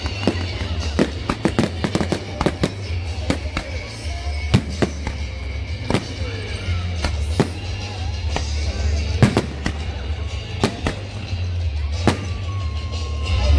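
Aerial fireworks shells bursting overhead in a rapid, irregular string of sharp bangs and crackles, several a second, with a louder cluster of reports near the end.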